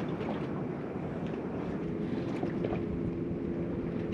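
Wind buffeting the microphone on a small boat at sea, with a faint steady motor hum coming in about halfway through.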